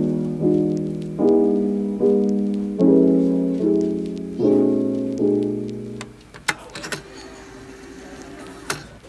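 Background piano music: soft sustained chords, a new one about every 0.8 s. It stops about six seconds in, leaving quieter ambient sound with a couple of sharp clicks.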